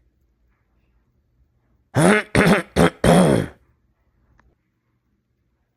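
A person clearing their throat hard: four quick, rasping voiced bursts in a row, about two seconds in, lasting about a second and a half. This is the aggressive throat clearing that mucus build-up on the vocal cords, which reflux can cause, leads to.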